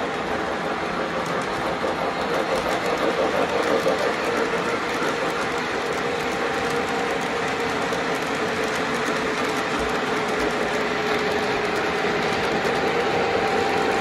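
O gauge model trains running on three-rail track: a steady rolling rumble of metal wheels with a steady hum and many light clicks. It swells a little about three to four seconds in and again near the end as cars pass close.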